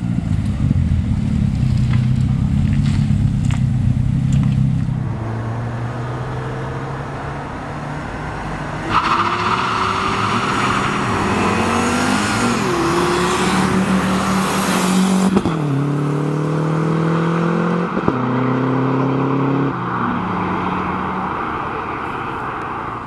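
A car engine revving hard, then from about nine seconds in a long tyre squeal and hiss of wheelspin as the revs climb, typical of a burnout. Near the middle the squeal stops and the engine note climbs in steps through gear changes as the car accelerates away.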